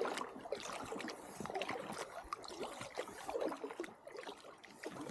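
Water lapping and splashing against an inflatable packraft moving down a shallow river, with small irregular splashes.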